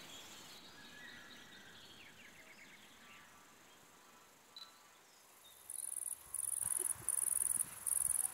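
An insect, cricket-like, stridulating: a loud, very high-pitched buzz in regular bursts about one and a half times a second, starting about two-thirds of the way in. Before it come a few faint bird chirps.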